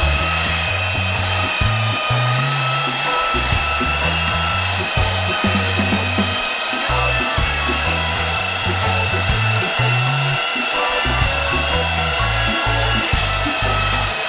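Handheld electric belt sander running at full speed on a turned wooden furniture leg, a steady high motor whine. Background music with a bass line plays underneath.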